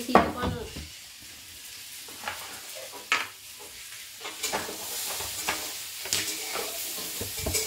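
Plastic containers and tins being handled and set down on a cabinet shelf: a scattering of sharp clacks and knocks, with a faint hiss underneath that grows in the second half.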